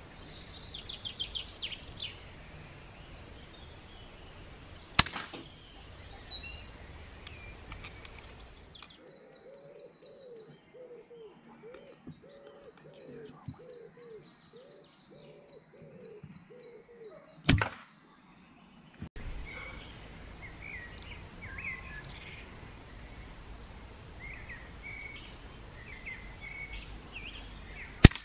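Three air rifle shots, each a single sharp crack: one about five seconds in, one midway, and the loudest at the very end. Birds chirp in the background.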